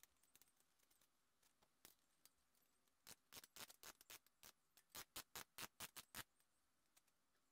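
A quick run of faint, sharp clicks, about five a second, starting about three seconds in and stopping about three seconds later: a screwdriver working at the mount of a plastic cable drag chain as it is fastened.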